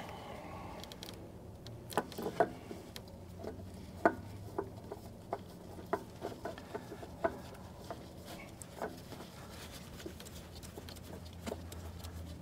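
Scattered light clicks and taps at irregular intervals: hands handling a new spin-on oil filter and knocking against engine parts while it is worked into place on a Caterpillar 259D3's engine.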